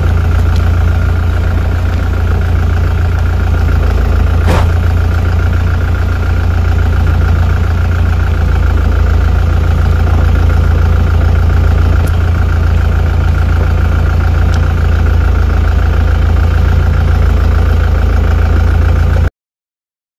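An idling engine with a loud, very steady low hum, and a single sharp click about four and a half seconds in. The hum cuts off suddenly near the end.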